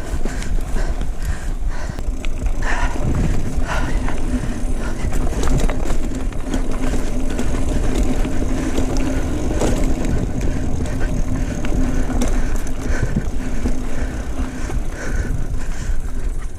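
Mountain bike being ridden on a dirt trail: steady tyre and trail noise with frequent rattles and knocks from the bike, and low wind rumble on the microphone.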